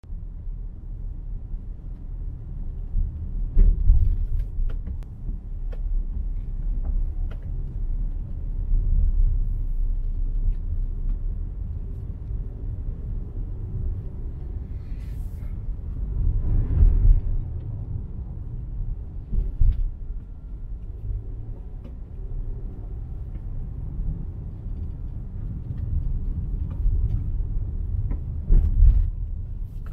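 Low, steady road rumble inside a moving car's cabin, with a few short knocks from bumps in the road.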